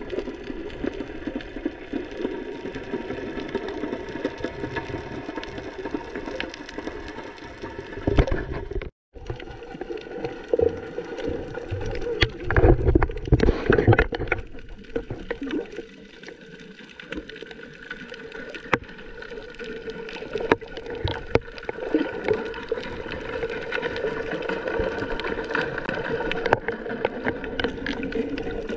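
Muffled water noise picked up by a camera held underwater while snorkelling: a steady murky rush with splashing and bubbling, loudest about halfway through.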